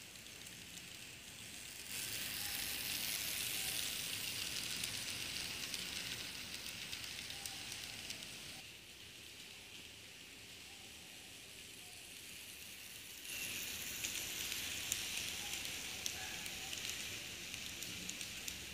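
Model train running on its track: a steady high hiss with fine rattling from the wheels and locomotive motor, over a low rumble. It grows suddenly louder about two seconds in, drops back about halfway, and grows loud again about two-thirds of the way through.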